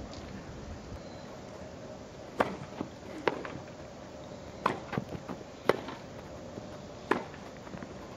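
Tennis ball hit back and forth in a rally on a grass court: sharp racket-on-ball pops about every second to second and a half, with a few softer knocks between, over a steady low background.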